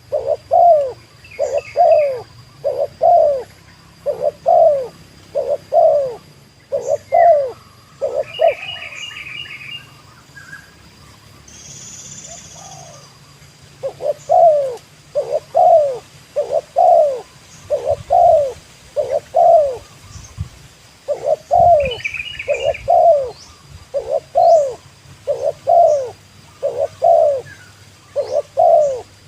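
Spotted dove (tekukur) cooing: a long series of evenly repeated low coos, about two a second, broken by a pause of a few seconds partway through and a brief one later. Short clusters of high chirps from small birds sound a few times between the coos.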